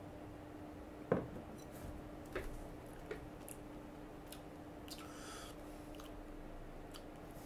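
Quiet mouth sounds of someone tasting a sip of imperial coffee stout: a few lip smacks and small wet clicks, the sharpest about a second in, and a short breath out a little past the middle, over a faint steady hum.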